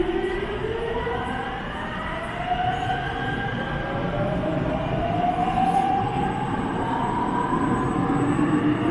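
Subway train's electric traction motors whining as the train accelerates, several tones climbing steadily in pitch over a rumbling background.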